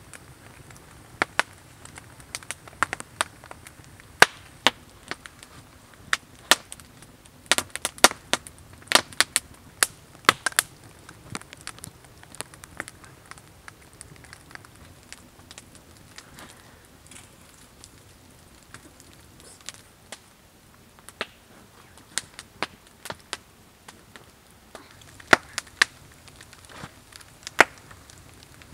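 Scattered sharp knocks and clicks of wooden stakes and logs being handled and lashed together for a log firewall. They come thickest about eight to ten seconds in and again near the end.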